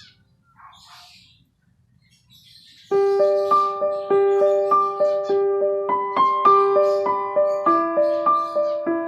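Birds chirping faintly, then about three seconds in piano music starts suddenly, a gentle melody of evenly repeated notes that becomes the loudest sound, with the birds still faintly heard behind it.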